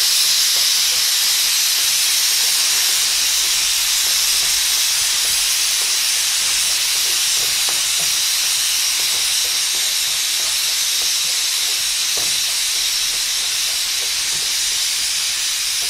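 Pressure cooker whistling: a loud, steady hiss of steam escaping past its weight, the one whistle that signals the green gram inside is cooked and the gas can go off. Faint spatula scrapes in a frying pan underneath.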